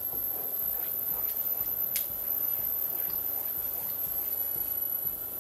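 Wooden spatula stirring a thick sauce of melting mozzarella and cream in a pan, giving soft wet stirring sounds, with a sharp tick about two seconds in.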